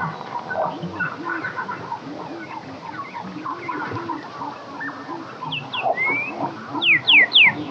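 Dense chorus of many short, repeated animal calls, with a rising whistle about six seconds in and three loud, quick descending whistles near the end.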